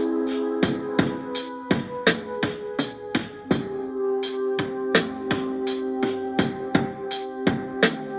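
A drum beat of regular kick, snare and tambourine-like hits over sustained keyboard chords, programmed on an Akai MPC Live from its stock sounds; the chord changes about halfway through.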